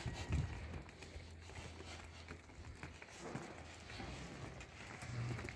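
Faint, uneven clopping of a pair of young Hallikar bull calves' hooves on a paved road as they are led along, over a low steady hum.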